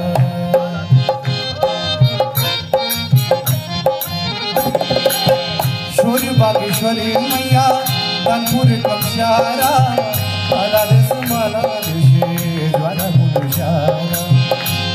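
Harmonium playing the melody of a Hindu devotional song (bhajan) in an instrumental break between sung lines. It plays over a steady beat of hand drum and hand claps.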